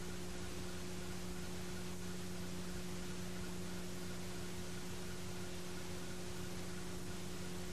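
Steady hiss with a low electrical hum and nothing else. This is the noise floor of an old videotape recording with no game sound on it.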